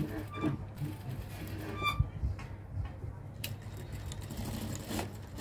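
Anysew industrial lockstitch sewing machine stitching, its mechanism clicking and whirring over a steady low hum, with a sharper click about two seconds in.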